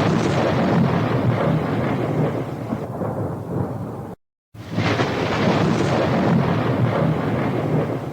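A loud, thunder-like rumbling noise that cuts off abruptly about four seconds in. After a brief silence the identical rumble starts over, loudest at its start: the same sound effect played twice.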